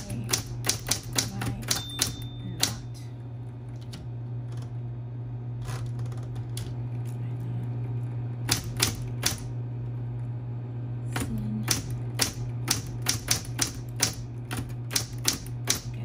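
Typing on a Smith-Corona Coronet Electric 12 electric typewriter: quick runs of sharp key and type-bar clacks with short pauses between, over a steady low hum from its running motor.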